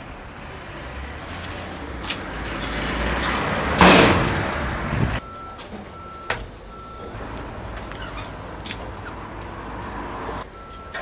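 Tyre baler machinery running, building to a loud rushing hiss about four seconds in that cuts off suddenly, followed by a repeating short electronic beep that stops and starts again near the end.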